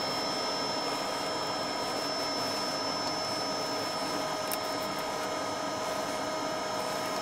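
A steady mechanical whir with a few constant tones held over an even hiss. It does not change through the stretch, and no knocks or tool sounds stand out.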